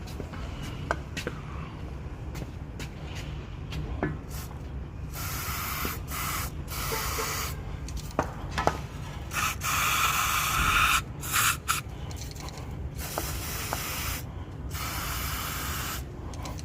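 Aerosol can of lubricant spraying in several hissing bursts, starting about five seconds in, the longest a few seconds, with a steady low hum underneath. The lubricant is going into the joint between the steel CV axle shaft and the aluminium wheel hub, to cure a tick heard when the steering is turned.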